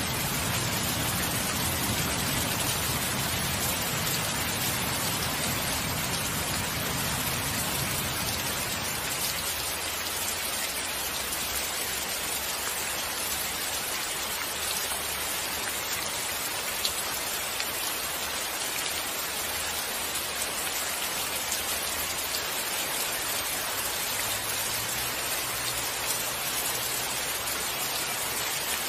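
Steady rain falling, with a low rumble of distant thunder that dies away in the first ten seconds or so.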